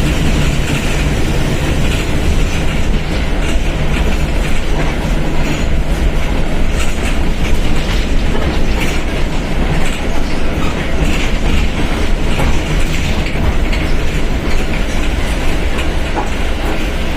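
Mercedes-Benz OF1721 BlueTec 5 bus's diesel engine running steadily with a deep rumble, mixed with steady running noise and scattered light rattles and clicks.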